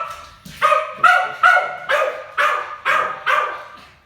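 Dog barking in a rapid run of about eight loud barks, roughly two a second, dying away near the end.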